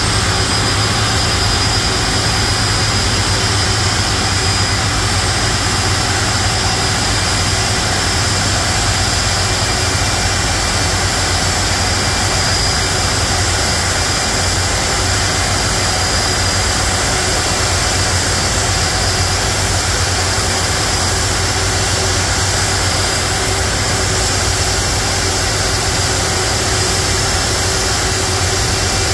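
Boeing 747-400 Freighter's four jet engines running at taxi idle as the aircraft rolls slowly in to its parking stand. The sound is a loud, steady rush with a high whine held on one pitch.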